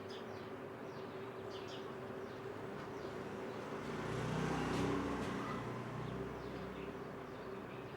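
Small birds chirping against a steady low hum, with a motor vehicle swelling past about four to five seconds in and fading away.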